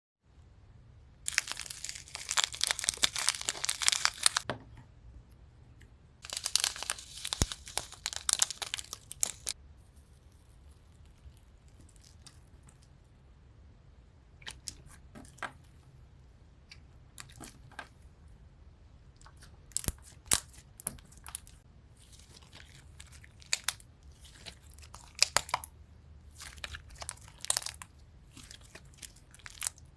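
Crunchy slime being squeezed and pressed by hand, crackling. There are two long runs of dense crackling, then scattered crackles and pops.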